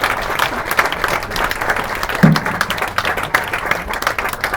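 Audience applauding and clapping at the end of a song, with one short voice sound about two seconds in. The claps thin out and die down near the end.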